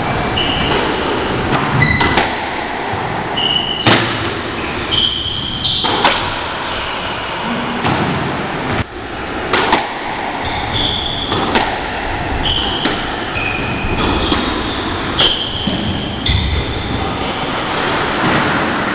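Squash rally: the ball hit by rackets and striking the court walls, a sharp hit every second or two, with short high squeaks of shoes on the wooden court floor between the hits.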